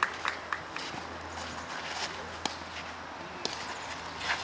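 Quiet outdoor background with a low steady hum and a few scattered light ticks, the clearest about two and a half seconds in.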